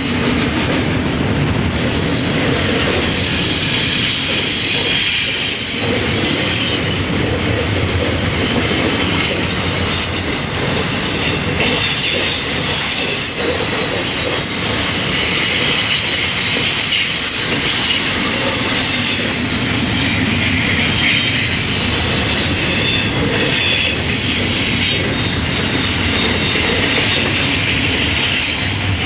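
Florida East Coast Railway intermodal freight train's double-stack well cars rolling past, steel wheels rumbling on the rails. High-pitched wheel squeal rises and fades again and again over the rolling noise.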